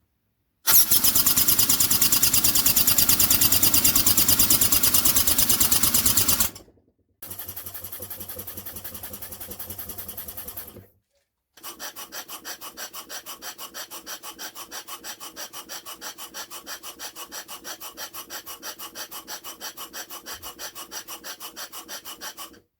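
Steam engine running: fast, even exhaust beats over a steady hiss, in three separate takes that cut off abruptly. The first take is the loudest and hissiest; the later ones are quieter, with distinct regular beats.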